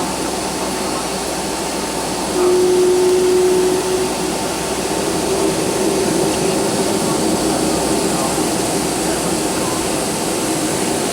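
Cabin noise inside a Boeing 757-200 with its jet engines running: a steady rushing hum. About two seconds in it gets louder for a second and a half with a steady droning tone, then settles back into a fuller hum.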